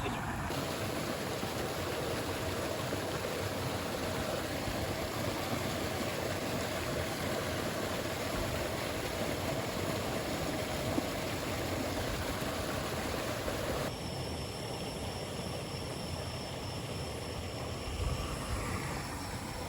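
Steady rushing of a river running high after heavy rain. About 14 s in the sound changes abruptly, the rush gets lighter, and a thin, steady high tone comes in over it.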